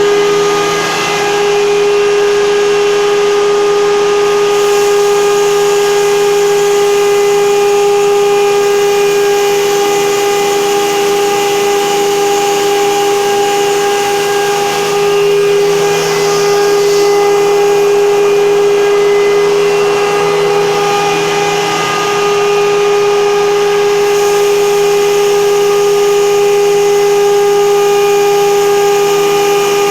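Flour-grinding mill running steadily with a strong, even whine over a rush of air, blowing out so much air that its collection bag inflates. The level dips briefly a few times.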